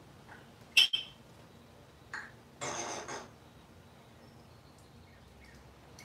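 African grey parrot vocalizing: a loud, sharp chirp just under a second in, then a short call and a brief mumbled, speech-like sound between two and a half and three seconds in.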